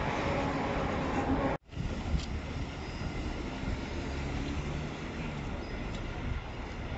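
Steady city street traffic noise, the running hum of passing vehicles. It cuts out abruptly about one and a half seconds in, then similar traffic noise carries on.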